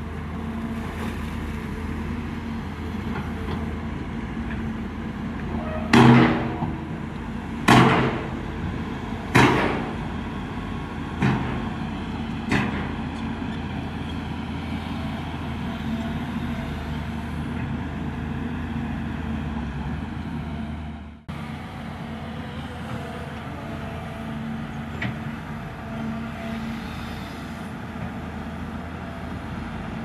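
Diesel engine of heavy earthmoving machinery running steadily, with five loud bangs about a second and a half apart, each weaker than the last. The sound drops out for an instant about two-thirds of the way through.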